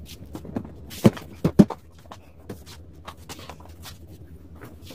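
Handling noise from a massage chair being assembled: a few sharp knocks and clicks as a hand works at its side panel and seat cover, the two loudest close together about a second in, then faint small taps.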